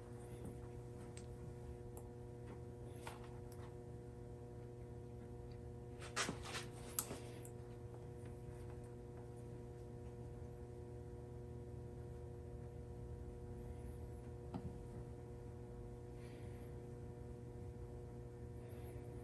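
Low steady hum of room tone, with a few light clicks and taps from spark plugs and multimeter probes being handled for a resistance test, the clearest cluster about six to seven seconds in and one more a little past halfway.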